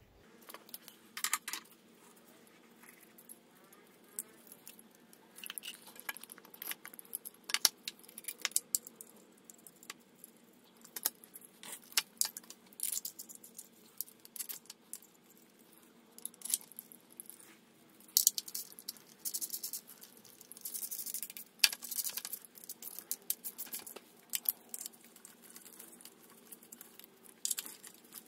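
Irregular metallic clinks, taps and rattles of bolts and hand tools as an A/C compressor is fitted and bolted onto its mounting bracket on the engine, busiest about two-thirds of the way through.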